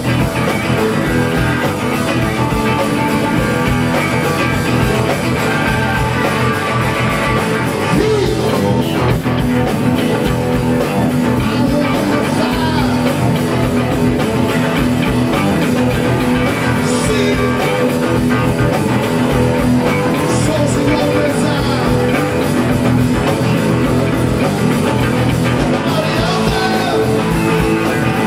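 Live rock band playing: electric guitars over bass, keyboards and drum kit, steady and loud throughout.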